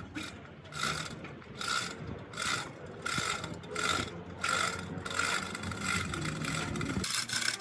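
A hand tool scraping metal in regular back-and-forth strokes, about ten rasping strokes a little over one a second.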